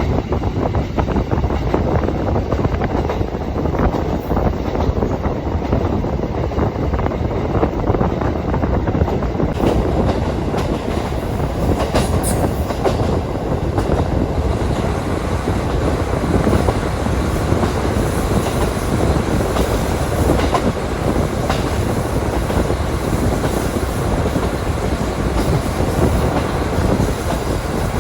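KiHa 40 diesel railcar under way, heard from inside the carriage: a steady run of engine and wheel-on-rail noise with scattered clicks of the wheels over the track.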